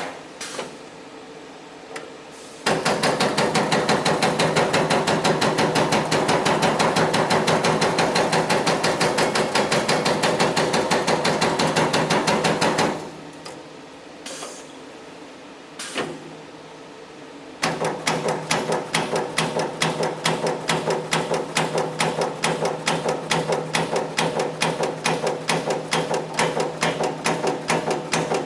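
Servo CNC turret punch press ram striking in rapid, even strokes, many per second. It begins about two and a half seconds in, stops for a few seconds just before the midpoint with only a couple of clicks, then starts again with a steady hum under the strokes.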